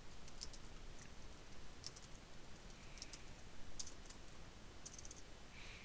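Faint, irregular keystrokes on a computer keyboard as text is typed.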